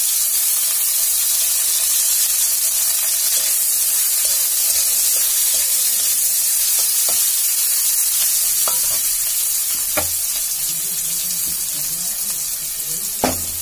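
Sliced onions sizzling in hot oil in a kadai, a steady frying hiss, while a spatula stirs them and knocks against the pan a few times, the loudest knock near the end.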